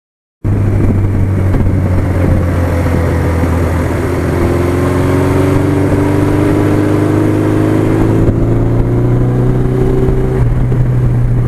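1982 Suzuki GS1100E's air-cooled inline-four engine running under way, cutting in abruptly. Its pitch holds steady at first, then rises slowly through the second half as the bike gathers speed.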